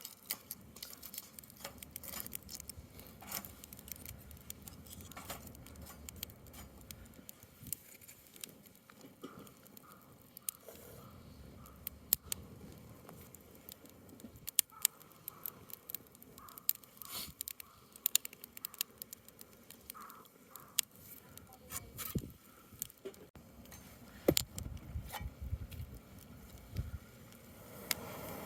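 Wood fire crackling in a small camp wood stove, with irregular sharp pops and clicks.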